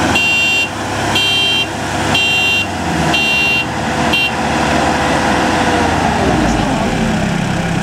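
Heavy farm-machine engines running hard under load as a combine harvester tugs a mud-stuck tractor. An electronic warning beeper sounds five times, about once a second, and then stops. The engine pitch sinks slightly near the end.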